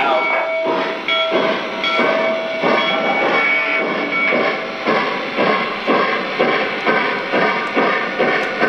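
Lionel Greenbrier O-gauge steam-locomotive model running, its onboard sound system playing steam exhaust chuffs at about two a second. A steady tone sounds under the first half.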